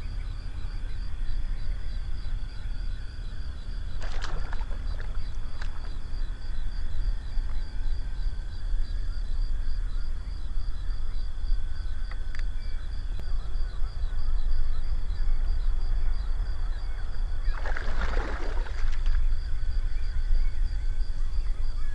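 Outdoor marsh ambience: a steady low rumble under a high, evenly pulsing trill that runs throughout, with two brief rushing noises, one about four seconds in and a larger one near the end.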